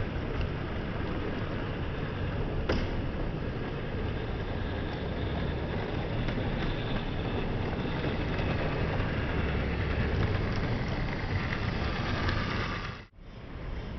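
OO gauge model train, a class 37 diesel locomotive hauling a rake of coaches, running along the track with a steady rumble of wheels and motor and a sharp click about three seconds in. The sound breaks off abruptly near the end.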